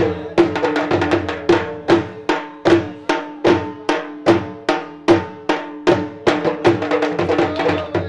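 Punjabi jhumar folk music: a drum struck in a steady beat of about two to three strokes a second, heavier on every other stroke, over a steady held pitched tone.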